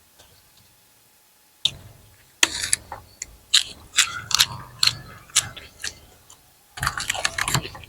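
Close-up eating sounds of someone chewing steamed chicken: a string of sharp, wet clicks and smacks starting about two seconds in, then a denser burst near the end.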